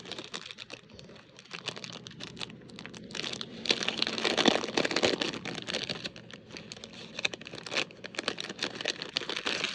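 Packaging being handled and rummaged through, crinkling and rustling with many small crackles, busiest and loudest around the middle.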